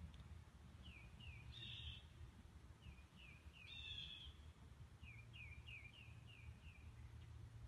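Birds calling: runs of short chirps that slide downward in pitch, about three a second at times, with two louder, harsher calls early and midway, over a low rumble.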